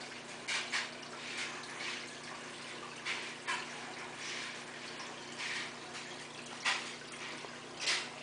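Aquarium filter running: water splashing and bubbling at the surface in irregular spurts, roughly one a second, over a steady low hum.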